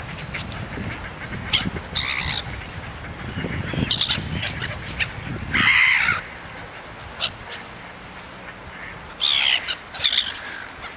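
Gulls calling in short, harsh squawks, one after another; the loudest call comes a little past halfway, with a couple more near the end. A low rumble runs under the first half.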